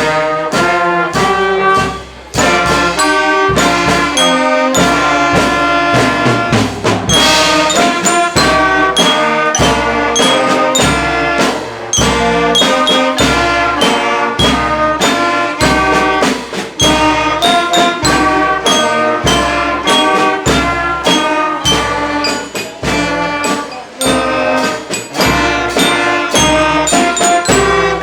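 Children's school band playing live, brass instruments carrying the tune over drums keeping a steady beat.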